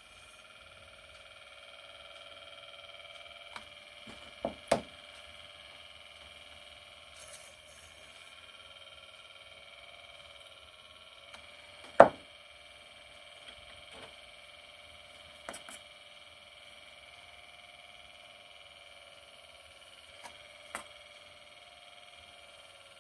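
Miniature electric pottery wheel's motor running with a steady whine while clay is worked on it. A few sharp knocks, the loudest about twelve seconds in.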